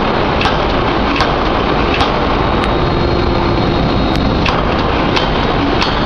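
3-ton electro-hydraulic open die forging hammer working hot steel: a loud steady machine noise with sharp short knocks at an uneven pace of about one to two a second.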